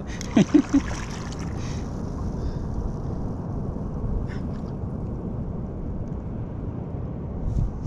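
Steady wind and water noise on the open sea: wind on the microphone and small waves lapping against the kayak hull.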